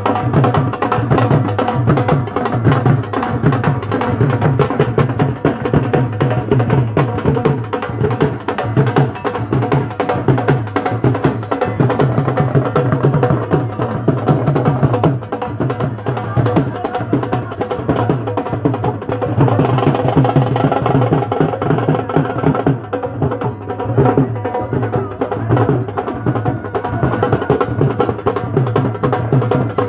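Live folk band music: dhol drums beaten with sticks in a fast, steady rhythm under wind instruments holding sustained notes. The music grows brighter and louder for a few seconds about two-thirds of the way through.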